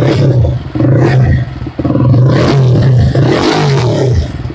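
Jawa 42's single-cylinder engine running at idle through a freshly fitted Red Rooster Performance aftermarket exhaust, a deep, bassy note. The note sags and dips briefly a few times.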